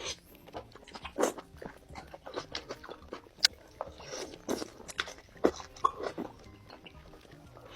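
A person chewing seblak lidah up close, with a run of short, irregular mouth clicks and chewing noises; the loudest click comes a little past the middle.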